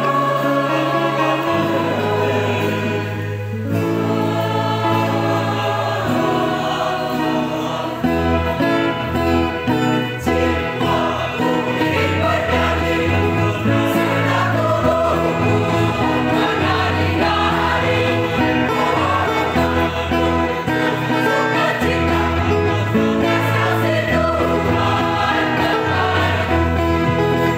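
Mixed church choir singing in parts, accompanied by an electronic keyboard holding steady bass notes under the voices.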